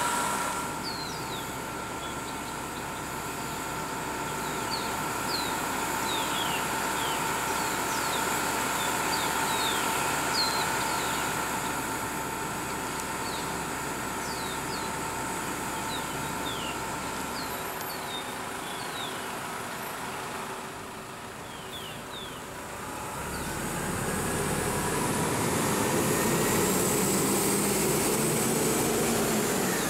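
Transit buses running at a stop with a steady engine whine; near the end a bus engine pulls away, rising in pitch and getting louder as it passes.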